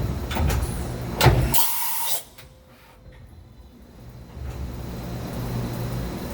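Mazak HCN 4000-III horizontal machining center working through an automatic tool change. Machine noise runs until a sharp clunk about a second in, followed by a hiss of air. The sound drops away briefly, then a steady low hum builds again.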